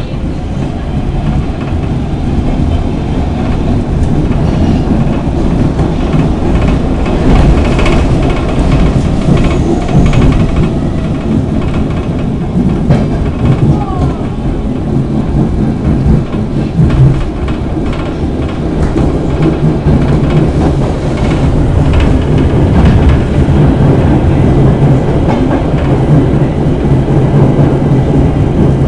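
Stockholm Metro C6 subway train running on the line, heard from inside the car: a loud, continuous rumble of wheels and running gear with scattered clicks over the rails, growing louder over the first several seconds.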